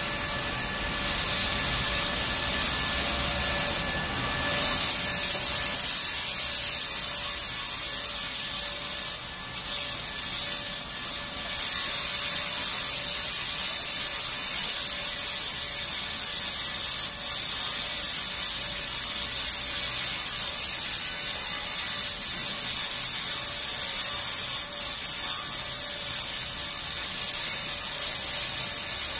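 Handheld 100 W pulsed laser rust cleaner working over a rusty steel plate: a steady high-pitched hiss as the beam strips the rust to bare metal.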